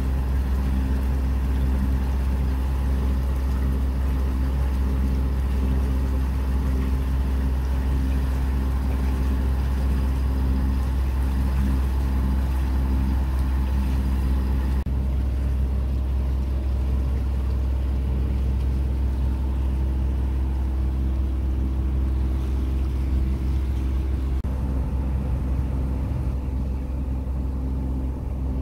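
Hunter 356 sailboat's inboard diesel engine running steadily under power, a constant low drone with even tones above it, over a hiss of water and wind. The hiss drops away about halfway through while the engine drone carries on unchanged.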